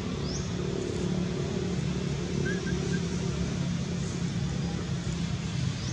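A motor vehicle engine running steadily, heard as a low, even hum.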